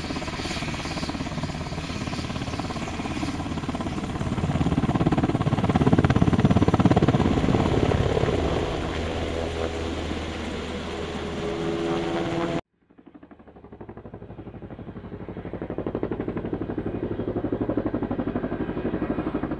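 Sikorsky VH-3D Sea King presidential helicopter's rotor beating rapidly as it climbs away, growing louder for a few seconds in the middle. The sound cuts off abruptly about two-thirds of the way through, then the rotor beat fades back in and holds steady.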